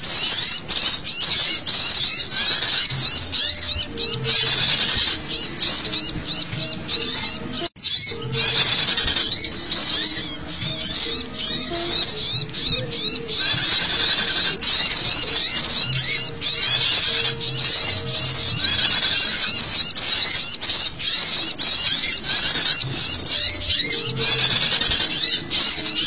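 A bird-lure recording of many small birds calling noisily: dense, rapid, high-pitched chirps and twitters, several a second, with a momentary break about eight seconds in.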